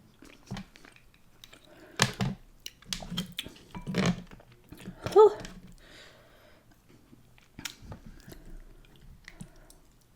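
Close-miked chewing and wet mouth sounds of a person eating, with scattered clicks and smacks. About five seconds in comes a short breathy 'whew' at the heat of the spicy chili sauce.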